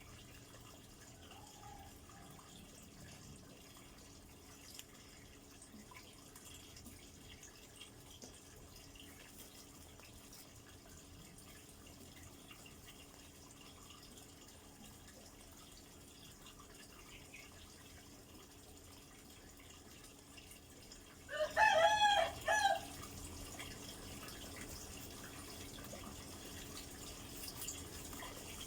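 A rooster crowing once, about two-thirds of the way through: a single wavering call of about a second and a half, over a faint steady background.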